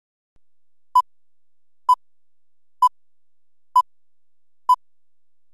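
Countdown-leader beeps: five short, identical electronic beeps at the same pitch, one about every second, marking each number of the countdown.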